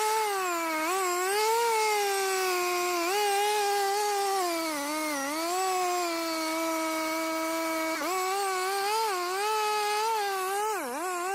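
A high-revving motor whine, typical of a saw in a tree-cutting machine. It revs up sharply at the start, then holds a high pitch that wavers and dips several times, most deeply near the end.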